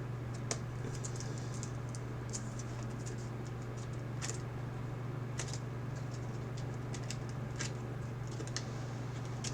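Trading cards being handled and flipped through, giving soft, irregular clicks and flicks over a steady low hum.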